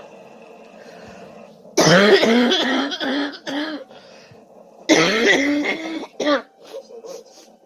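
A person coughing in two fits, each a quick run of harsh, throaty coughs, the first about two seconds in and the second about five seconds in.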